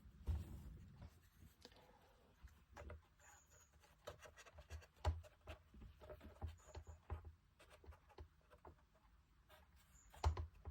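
Light, scattered taps, clicks and rubbing of small model parts being handled and pressed into place on a workbench, with two sharper taps about halfway and near the end.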